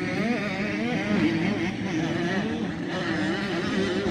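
Motocross dirt bike engines revving on the track, the pitch rising and falling continually as the throttle opens and closes.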